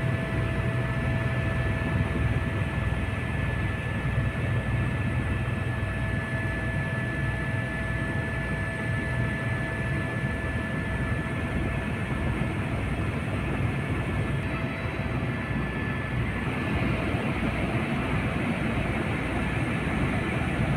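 Helicopter cabin noise heard from inside in flight: a steady engine drone over a fast, low rotor beat. Two thin steady whines ride on top and fade out past the middle.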